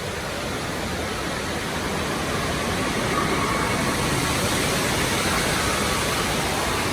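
Steady rush of falling and splashing water, a little louder from about two seconds in.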